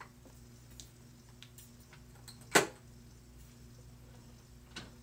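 Light ticks and taps of small objects being handled, with one sharp loud click a little over two and a half seconds in and a softer one near the end, over a low steady hum.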